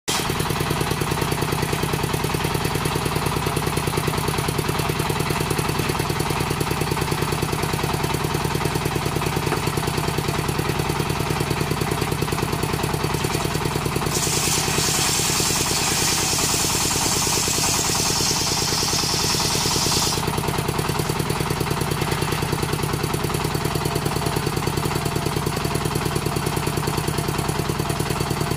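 Engine-driven circular saw bench running steadily with a low, pulsing engine note. About halfway through, a hiss lasting roughly six seconds comes in as the blade rips through coconut wood, then stops.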